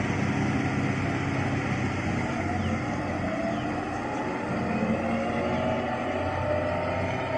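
Preet 987 combine harvester's diesel engine and machinery running steadily as it drives through the crop. A fainter whine wavers in pitch around the middle.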